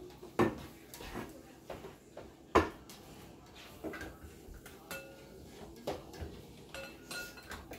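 A metal spoon clinking and scraping inside an upturned tin soup can held over a glass mixing bowl, with a series of sharp knocks, the loudest about half a second in and again about two and a half seconds in, and a few short ringing clinks later on.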